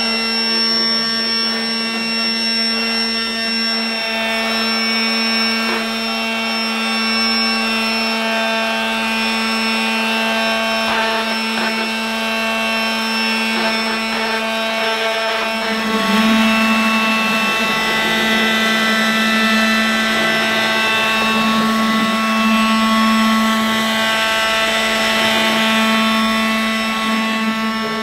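Small battery motor of a Casdon toy Dyson V8 cord-free vacuum running with a steady high whine with many overtones. About halfway through its pitch wavers and it gets slightly louder.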